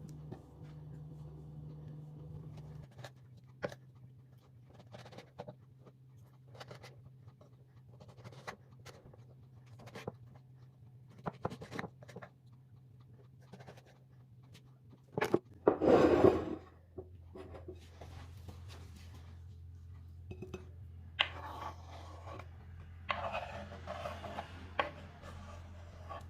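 Kitchen preparation sounds: scattered clicks and knocks of utensils and containers, a louder rush of noise lasting about a second roughly two-thirds of the way in, and rubbing or scraping near the end, over a steady low hum.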